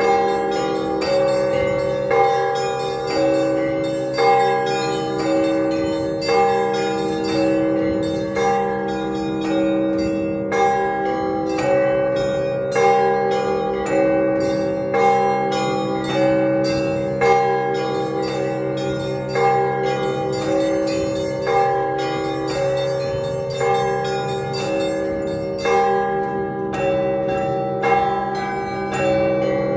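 Russian Orthodox church bells rung by hand in a repeating pattern. Small bells strike rapidly over sustained deep tones from the larger bells, with a stronger stroke about every two seconds.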